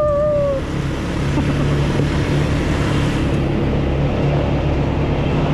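Automatic ATV engine running steadily as it is ridden.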